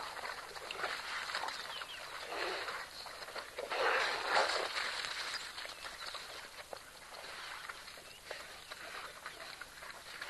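African wild dogs feeding on an impala carcass, tearing and chewing in uneven bursts with small clicks, loudest about four seconds in.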